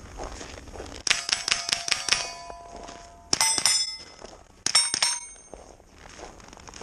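Rifle shots striking steel target plates, each hit leaving a ringing metallic clang: a quick run of several hits about a second in, then two more single hits about a second and a half apart.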